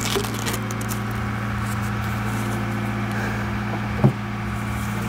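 An engine running steadily, with a single knock about four seconds in.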